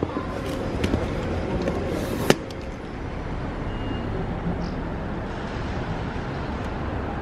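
A rolling suitcase's wheels clicking over a tiled floor, ending in one sharp knock about two seconds in, then steady road traffic noise.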